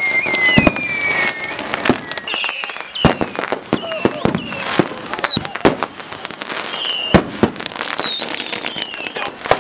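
Consumer fireworks going off in rapid succession: many sharp bangs and crackles, overlapped by several short whistles that fall in pitch.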